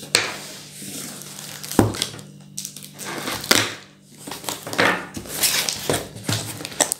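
A cardboard shipping box being opened by hand: packing tape slit with a blade and torn, and cardboard flaps and an inner box scraped and pulled out, in a series of sharp rips and knocks.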